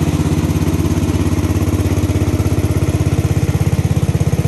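The 14-horsepower single-cylinder engine of a vintage Sears garden tractor running steadily under load with a rapid, even chugging, as the tractor tows a trailer loaded with about 2,800 pounds of firewood.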